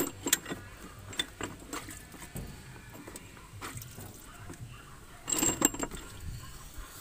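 Light metallic clicks and clinks from hand work on the opened block of an Isuzu 4BA1 diesel engine, with a short, louder burst of handling noise about five and a half seconds in.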